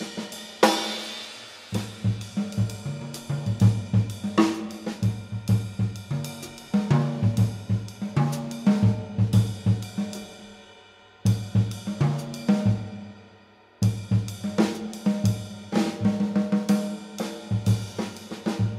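Contemporary jazz guitar trio playing: drum kit to the fore, busy on cymbals, hi-hat, snare and bass drum, over electric guitar and double bass. There is a cymbal crash about half a second in. Twice past the middle the music falls away to a fading ring, then the whole band comes back in sharply together.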